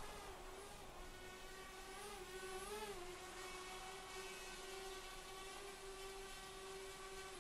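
Small quadcopter drone's propellers humming with a steady, even pitch that wavers up briefly twice, about two and three seconds in.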